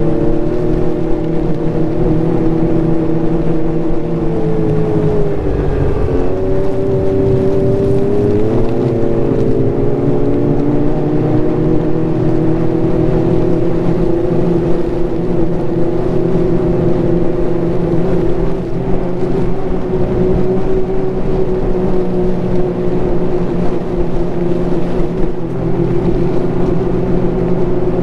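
Ski-Doo Renegade Enduro snowmobile's turbocharged three-cylinder 900 ACE engine running steadily along the trail. The engine note drops about four seconds in and climbs back up a few seconds later, then holds even.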